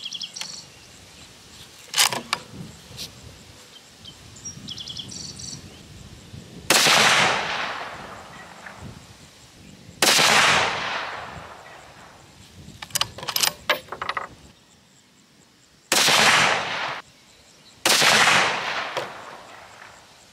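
Savage Axis II .243 bolt-action rifle firing a string of shots a few seconds apart, each a loud crack with a tail that fades over about a second. Between shots come sharp metal clicks of the bolt being worked, and faint insect or bird chirping sits underneath.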